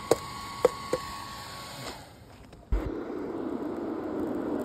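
Three sharp clicks over a steady hiss, then a steady rushing roar that grows louder: air being forced through the steel pipe into the charcoal fire of a homemade foundry melting zinc.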